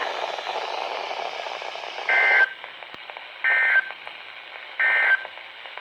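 Emergency Alert System end-of-message code from NOAA Weather Radio: three short, identical bursts of two-tone digital data screech, evenly spaced about a second and a half apart, over radio hiss. It marks the end of the alert broadcast.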